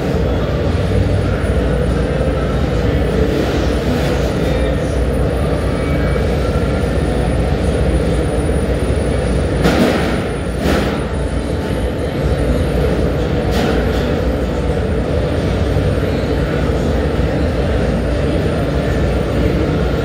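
Steady, loud low rumble of an industrial annealing furnace running, with a few brief knocks near the middle.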